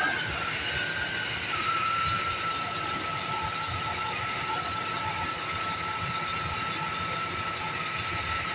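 2007 Chevrolet Silverado engine idling steadily with a steady high-pitched whine over it. The seller says the engine has a bad head gasket.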